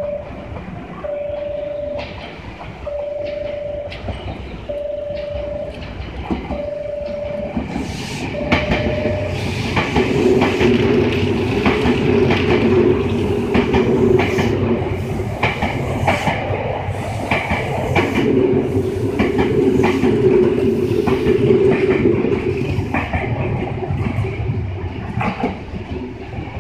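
A platform warning tone beeps about once every two seconds as a Senboku Rapid Railway 5000 series electric train approaches, then the train runs through the station at speed, its wheels clattering rhythmically over the rail joints, before the sound eases off as it pulls away near the end.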